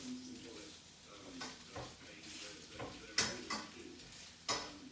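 Kitchenware being handled: sharp clinks and knocks, about three of them, the loudest a little past the three-second mark.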